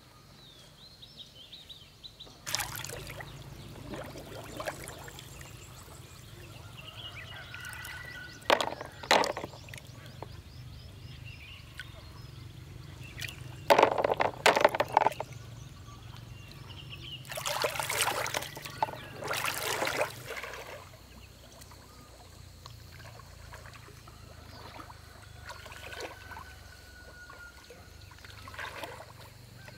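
Water sloshing and splashing as a person wades through a flooded field hand-picking snails, with sharp clattering knocks as the snails are dropped into a plastic basin, the loudest cluster about halfway through. Birds chirp faintly in the background.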